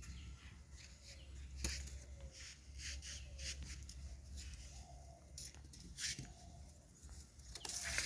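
Short taps, scrapes and rustles of a bamboo stick and a blade being handled on dry, leaf-strewn dirt, with faint bird calls.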